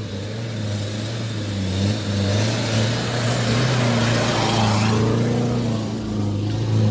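A Mitsubishi Pajero 4x4's engine holding a steady note under load as it climbs a steep, rutted dirt slope. A hissing rush of noise swells in over the middle few seconds.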